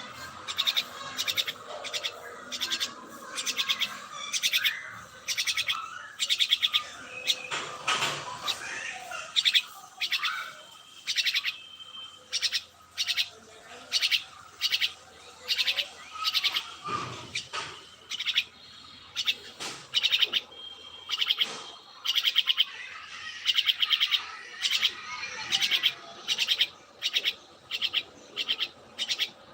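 Birds chirping: a steady run of short, high chirps repeating about once or twice a second.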